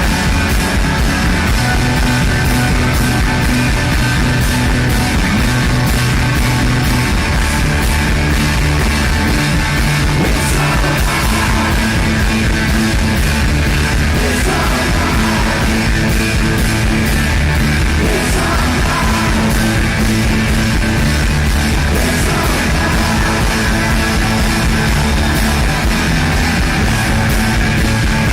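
Rock music: a full band with a steady drum beat, guitars and singing.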